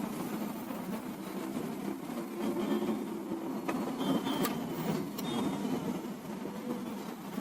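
Plastic parts of an HP LaserJet P1007 printer being handled and pressed into place during reassembly, with a few sharp clicks around the middle, over a steady low background noise.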